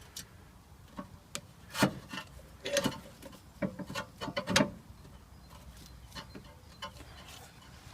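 Brake caliper wind-back tool being turned by hand against the rear caliper piston, giving irregular short scraping strokes and clicks as the piston is pushed back into the caliper.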